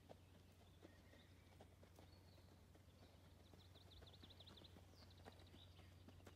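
Quiet: faint hoofbeats of a ridden horse on a sand arena over a steady low hum. About halfway through, a bird sings a quick trill of repeated high notes, with a short call just after.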